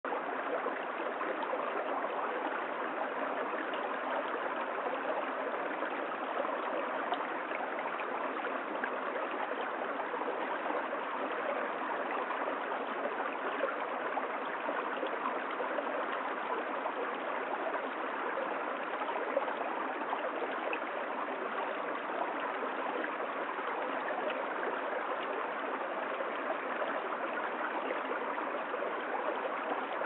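Shallow stream running over stones: a steady, even sound of flowing water.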